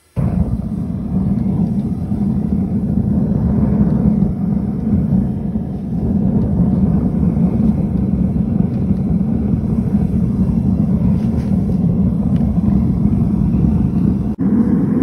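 Gas burner on a melting furnace lighting with a sudden start, then running with a steady deep rushing noise as it heats a steel crucible of scrap aluminium. The sound drops out for a moment near the end.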